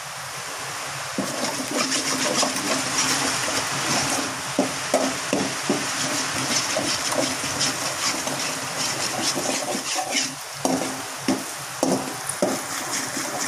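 Eggs frying in a stainless-steel kadai, sizzling steadily. From about a second in, a steel spatula breaks them up and scrambles them, scraping and tapping against the pan in quick irregular strokes.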